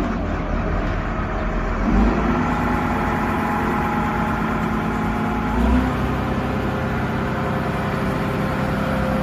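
Diesel engine of a large multi-axle mobile crane running steadily, with a brief rise in the engine note about two seconds in and again near six seconds.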